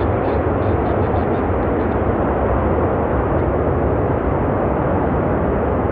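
Jet aircraft engine noise: a steady low rumble that neither rises nor falls.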